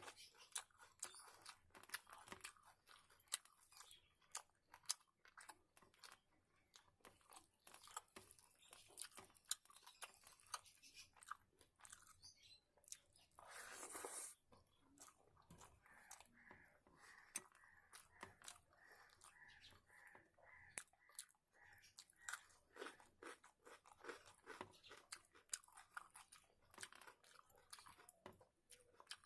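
A person eating close to the microphone: faint chewing with many small crisp crunches and mouth clicks, and a louder rustling burst about halfway through.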